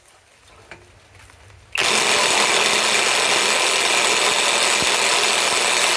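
Hercules HCB84B2 half-inch compact cordless impact wrench, on high speed, hammering steadily on a large 1-1/2 inch nut that it fails to break loose. It starts about two seconds in, after a couple of small clicks.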